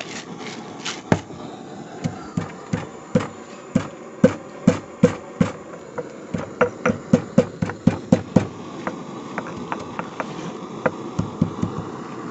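Black peppercorns being pounded in a stone mortar with a stone pestle: a run of sharp knocks about three a second, lighter after about eight and a half seconds.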